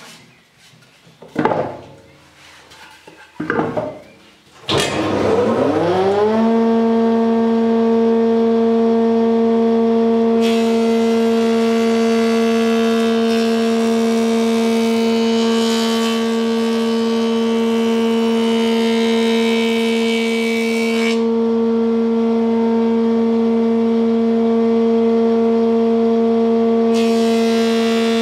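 Two clunks, then the Whitehead planer thicknesser, newly fitted with a single-phase motor, starts up. Its hum rises in pitch over a couple of seconds and then holds a steady note. From about ten seconds in to about twenty-one, and again near the end, a hissing rasp joins it as the cutter block planes the edge of a larch board.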